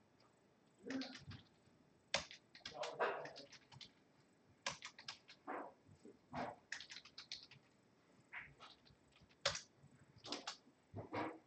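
Quiet typing on a computer keyboard: irregular keystrokes in short clusters with gaps between them.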